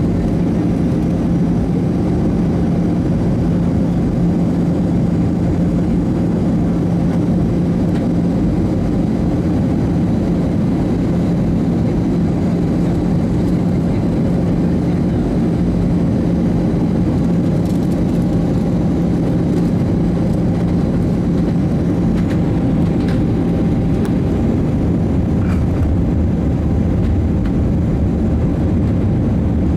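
Steady cabin noise inside an Airbus A319 on approach: a loud, even rush of engine and airflow noise with a steady low hum, the hum fading about two-thirds of the way through.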